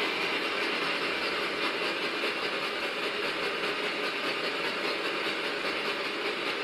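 Steady hiss of white noise or radio static from a ghost-hunting device, holding at an even level and listened to for spirit voices.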